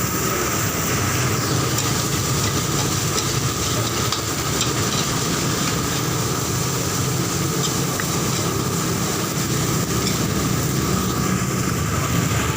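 Gas wok burner running with a steady roar and a constant whine, with a few faint clicks of a metal spatula against the wok as fried rice is cooked.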